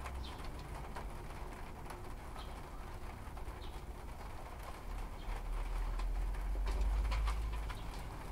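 A dove cooing in the background over a low rumble that swells about five seconds in, with faint rustling as rooted lavender cuttings are pulled apart by hand.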